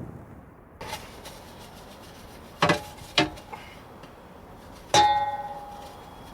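Dishes and cookware being handled: a light knock, two sharp clinks close together, then a louder clang that rings on for about a second.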